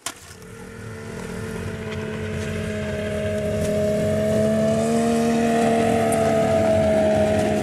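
Snowmobile engine running and drawing closer, growing steadily louder over the first few seconds and then holding, its pitch rising a little about five seconds in.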